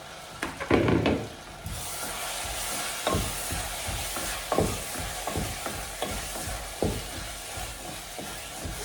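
A loud clatter about a second in, then a steady sizzle of dried vegetables frying in a pan of tomato and onion paste. A spoon stirs and knocks against the pan a few times.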